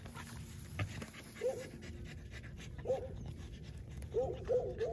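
Dog panting close to the microphone, with short high-pitched whines: one about a second and a half in, one near three seconds, and three in quick succession near the end.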